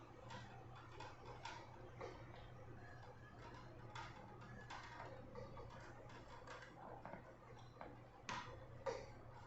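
Faint, irregular clicks and taps of a ring light and its stand being handled and fitted together, over a low steady hum; two louder clicks come near the end.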